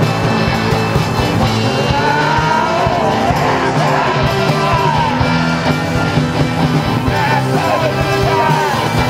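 A dark punk/synth band playing at full volume, with a steady drum beat and bass underneath. From about two seconds in, a lead line bends and wavers up and down over the top.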